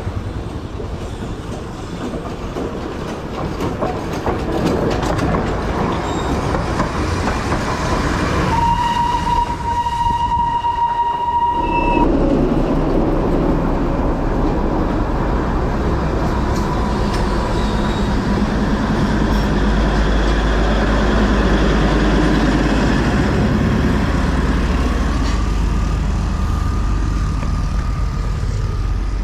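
Train rumbling past with a horn held for about three and a half seconds, starting around nine seconds in. The low rumble gets heavier after the horn stops.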